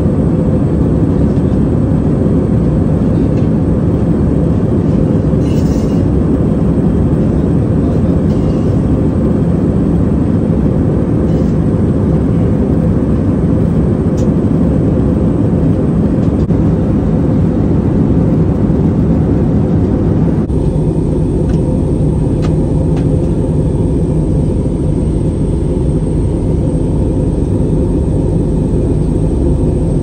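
Steady cabin noise of an Airbus A320-family jet airliner in cruise, heard from inside the cabin: a dense rumble with a steady hum on top. About twenty seconds in it changes abruptly to a slightly duller tone where two recordings are joined.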